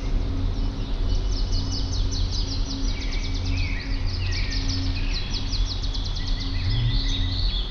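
Several songbirds chirping and singing, with a fast trill of rapidly repeated high notes lasting a few seconds through the middle, over a steady low hum.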